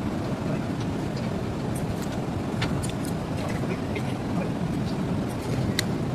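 Steady low rumble of ship's engine-room machinery, with a few light metallic clicks over it.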